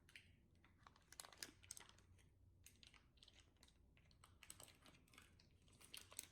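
Faint, irregular squelching and small crackling pops of slime being squeezed and stretched by hand, coming in quick clusters about a second in and again near the end.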